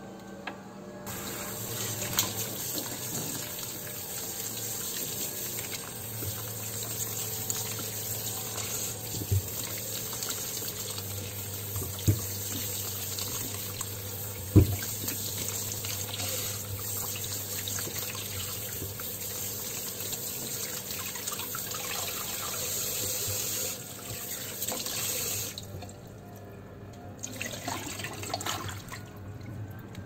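Kitchen tap running into a plastic bowl in a stainless steel sink as lemons are washed by hand, with a few sharp knocks along the way. The water shuts off about three-quarters of the way through.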